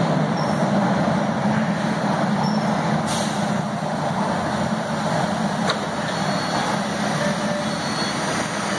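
Steady hum of a new MBTA Red Line subway train standing at the platform with its doors open, its ventilation and auxiliary equipment running. A brief hiss of air comes about three seconds in, and a short click near six seconds.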